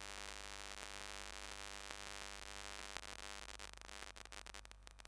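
Faint steady hum with a light hiss and no other distinct sound, a little fainter near the end.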